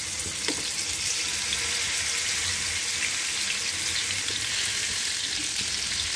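Marinated chicken tikka skewers sizzling in hot oil in a flat nonstick pan: a steady hiss with scattered crackles as more skewers are laid in.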